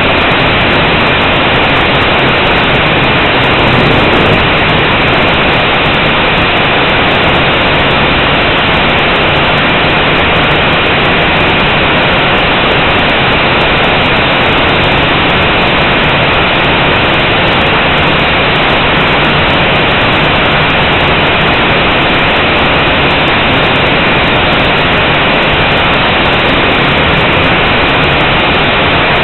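Blade 180 quadcopter's motors and propellers whirring in flight, picked up by the drone's own onboard camera: a loud, even rushing noise with a faint steady high whine.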